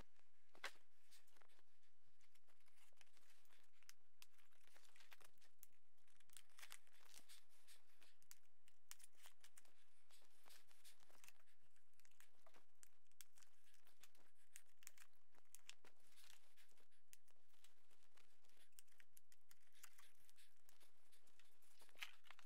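Faint, sped-up crinkling, rustling and tearing of foam and plastic packaging being pulled off a new e-bike: a dense, rapid scatter of small crackles and clicks.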